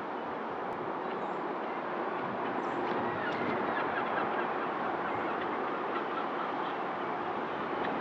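LMS Black Five 4-6-0 steam locomotive running light and approaching, a steady rumble that grows a little louder from about two seconds in. A few faint, short high squeaks come around three seconds in.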